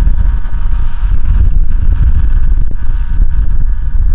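Wind buffeting the microphone with a heavy low rumble, over a faint steady whine from a radio-controlled scale Schweizer 300 model helicopter running on the ground.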